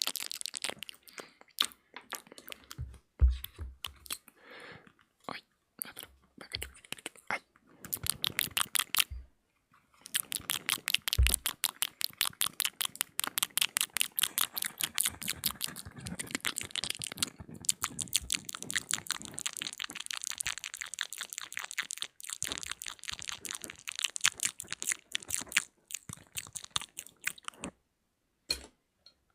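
ASMR mouth sounds made close to the microphone: quick wet clicks and smacks of the tongue and lips. They come in scattered bursts at first, then turn into a long, dense run of rapid clicks.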